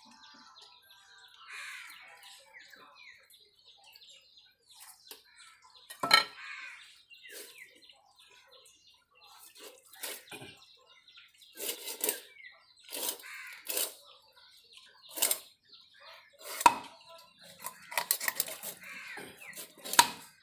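A knife cutting through a large scaled fish on a wooden block, giving sharp cracks and scrapes: one loud crack about six seconds in, then a quick run of them through the second half. Birds chirp faintly in the background near the start.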